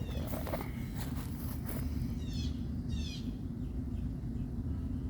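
Birds chirping in short falling runs over a steady low rumble, with a few clicks and rustles in the first two seconds.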